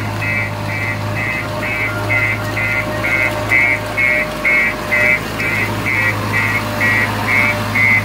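JCB 3DX backhoe loader reversing: its diesel engine runs steadily under a high-pitched reverse alarm beeping evenly, about two and a half beeps a second.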